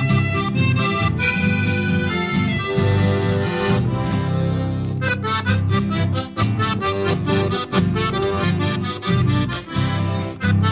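Instrumental background music led by an accordion, playing sustained reedy chords and melody. A quick, even beat joins it about halfway through.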